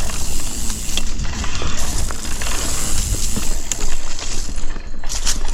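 Mountain bike riding on a dirt singletrack: wind rumbling on the microphone, tyre noise, and many short rattles and clicks from the bike over the rough ground.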